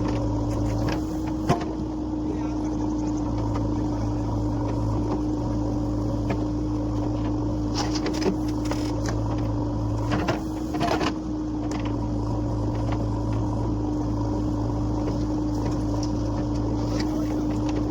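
Diesel engine of a JCB backhoe loader running steadily while it loads mud, with a few short knocks along the way.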